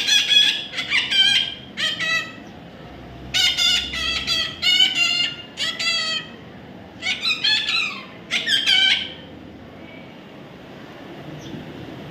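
A parrot calling in bursts of loud, repeated squawks, in several clusters about a second long. The calls stop for the last few seconds.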